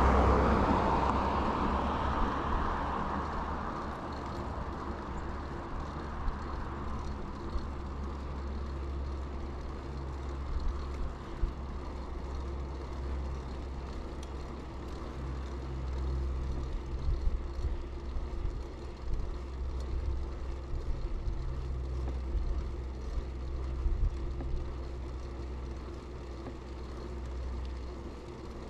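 A car passes close by at the start, its road noise fading over about four seconds. Then a steady low rumble of wind and tyres while riding a mountain bike on pavement, with a few short knocks and rattles.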